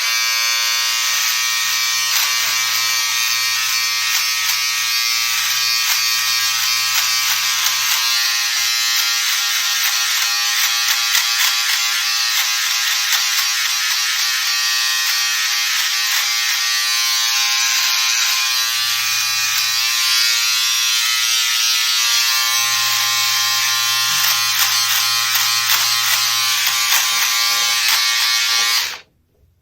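Electric shaver running with a steady, loud buzz, cutting off abruptly near the end.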